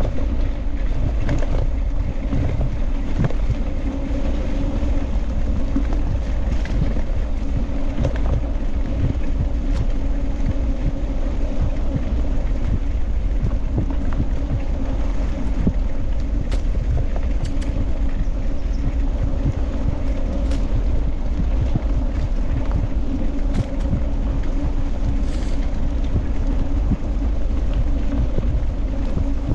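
Steady rumble of a dog scooter rolling fast over a bumpy dirt forest track, its wheels and frame rattling, mixed with wind buffeting the handlebar-mounted camera's microphone, with scattered short knocks from bumps.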